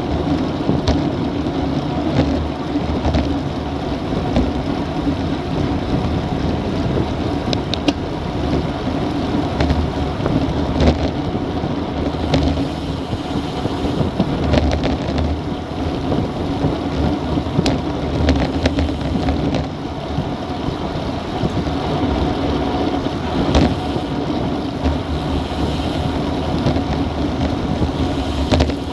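Steady rush of wind and road noise on a bike-mounted action camera's microphone while riding a road bike at about 35 km/h, with a few sharp clicks scattered through it.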